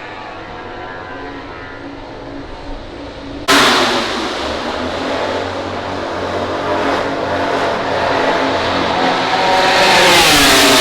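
MotoGP racing motorcycles running at high revs on track. The sound jumps suddenly louder about a third of the way in, and near the end a bike passes close with its pitch dropping.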